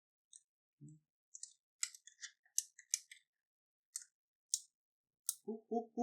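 A dozen or so small, sharp clicks and ticks at irregular intervals, the kind made by handling small parts and tools on a workbench. Near the end come three or four short, low, buzzing pulses.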